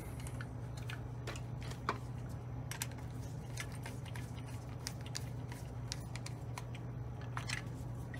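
Scattered light clicks and ticks of a screwdriver turning a small screw into a toy locomotive's metal chassis, over a steady low hum.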